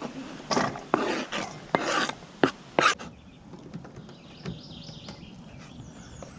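Kitchen knife scraping diced onion off a cutting board into a stainless steel bowl: several short scrapes in the first three seconds, then only faint sounds.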